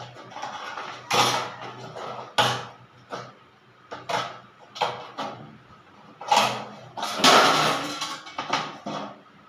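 Tin snips cutting thin pre-painted sheet-metal flashing: a series of about ten short cuts, irregularly spaced, with the thin sheet being handled and bent between them.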